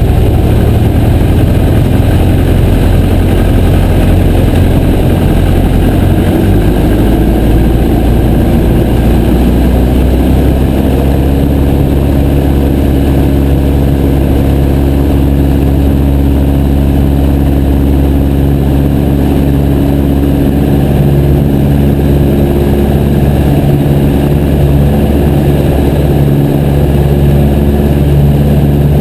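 Light aircraft's piston engine and propeller running steadily, heard loud from the Piper J3 Cub. The engine note rises slightly several seconds in, then holds steady.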